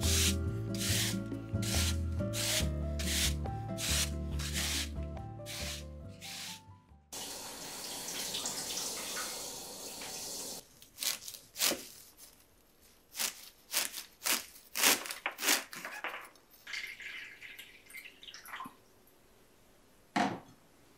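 Background music with a steady beat for the first seven seconds, then a kitchen tap running into the sink for about three seconds, followed by a scatter of clinks and knocks as dishes and containers are handled at the counter.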